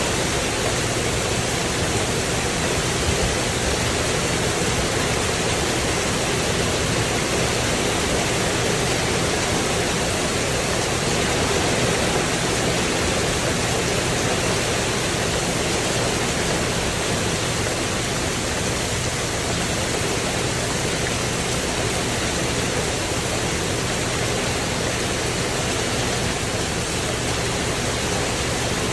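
Heavy rain falling steadily on a tin roof and porch, a constant even rush without distinct drops or breaks.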